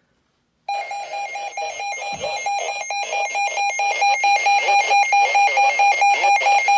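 Emergency Alert System attention tone: a loud electronic alarm tone that cuts in about a second in and warbles rapidly, about four times a second, with faint broadcast audio beneath it.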